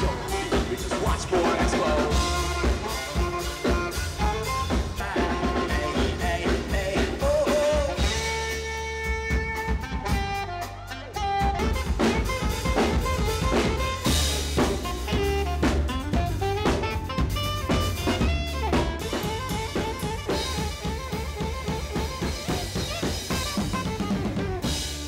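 Live band playing: a drum kit keeping a steady beat under saxophone and electric guitar, with held melodic notes. The drums drop out briefly about ten seconds in and come back a second later.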